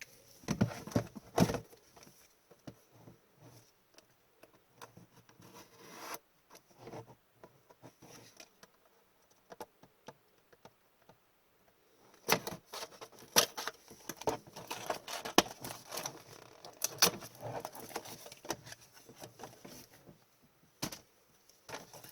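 A sealed trading-card blaster box being opened by hand: the wrapper and cardboard rustle and crinkle, with sharp clicks and tears. A few handling noises come about a second in, it goes quiet, then there is a busy stretch of crinkling and tearing from about twelve seconds in.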